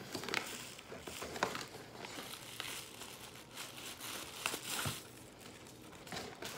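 Wig packaging being handled as a wig is unpacked: irregular paper and plastic crinkling with a few sharp crackles.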